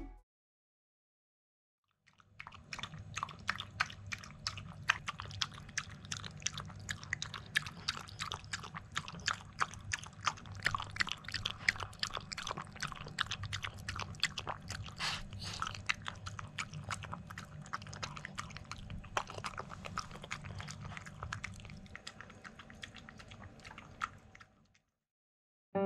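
A poodle eating a wet meal of oatmeal and vegetables from a bowl: many rapid, wet chewing clicks over a low steady hum. It starts about two seconds in and stops shortly before the end.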